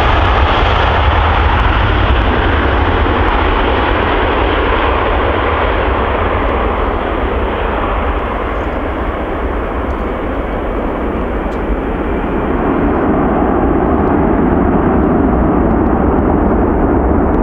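Airbus A380's four jet engines at takeoff thrust as it lifts off and climbs away: a continuous deep rumble and roar, its hiss slowly dulling as the aircraft pulls away.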